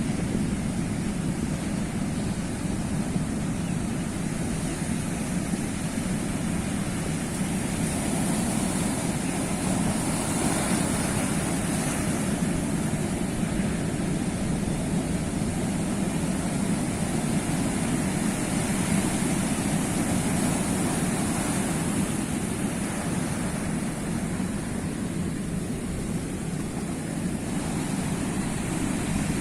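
Sea waves rushing and washing continuously, swelling louder around ten seconds in.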